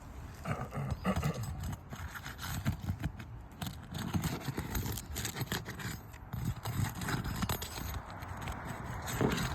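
Roof snake, a flat metal shingle-removal bar, being worked under asphalt shingles: irregular knocks and scrapes as it is pushed and pried to loosen the shingles and their nails.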